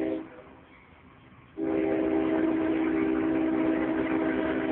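Freight locomotive's multi-chime air horn blowing a short blast, then a long held blast from about a second and a half in: the short-then-long close of a grade-crossing signal.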